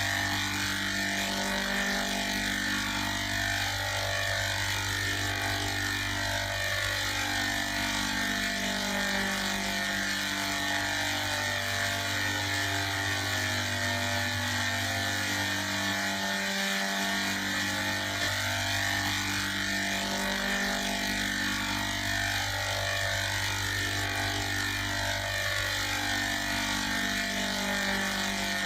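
Music run through a harsh square-wave distortion effect, coming out as a continuous buzzing rattle. Low notes and chords underneath change every couple of seconds.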